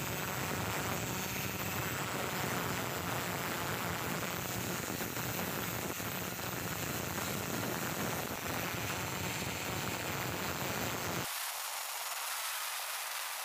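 Angle grinder with a flap disc grinding down fresh weld on a steel axe head: a steady grinding noise. About eleven seconds in the sound changes abruptly and thins, losing its low end.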